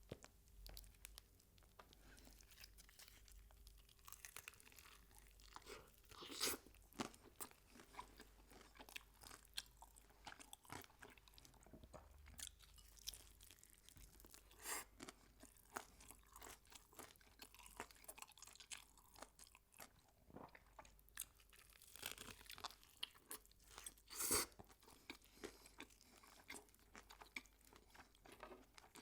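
A person eating crispy fried chicken close to the microphone, chewing steadily with a run of small crisp crunches and three louder crunching bites spread through.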